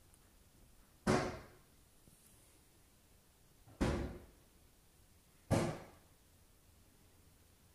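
Cupboard doors slamming shut three times: a sharp bang about a second in, another near four seconds and a third about a second and a half later, each trailing off briefly.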